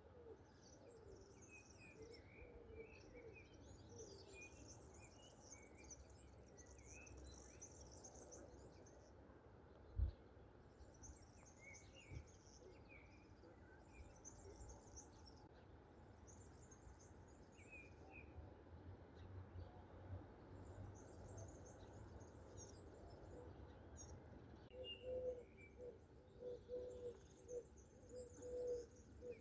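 Songbirds chirping and trilling on and off, faint, with a dove starting a run of low cooing notes near the end. A single low thump comes about a third of the way in.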